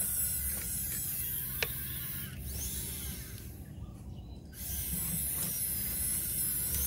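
Small electric winch on a scale RC truck whining as it reels in the cable to drag a load up onto the trailer. The whine wavers in pitch and cuts out for about a second in the middle before starting again, with one sharp click early on.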